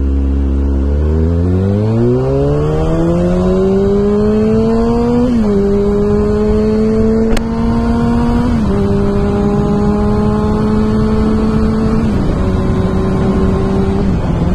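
A 2009 Kawasaki ZX6R's inline-four sportbike engine accelerating hard with its exhaust silencer out, very loud. The engine note climbs for about five seconds, then holds high with a short dip at each of about four upshifts.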